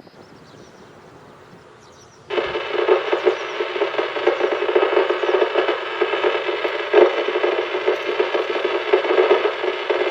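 A municipal disaster-prevention radio loudspeaker (outdoor public-address horn) starts its chime melody suddenly about two seconds in, loud and ringing with many steady tones, after a few seconds of faint outdoor background.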